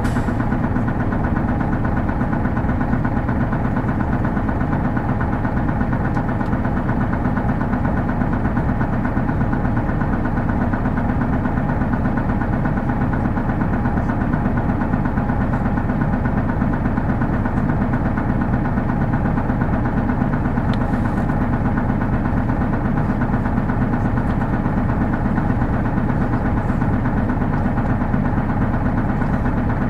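Hino Blue Ribbon City Hybrid bus's diesel-electric drivetrain running steadily, heard from inside the passenger cabin as an even engine drone with no revving.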